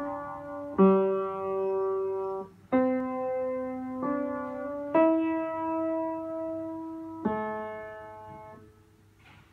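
Intro music of slow keyboard chords in a piano-like sound, a new chord struck every one to two seconds and each held. The music fades out near the end.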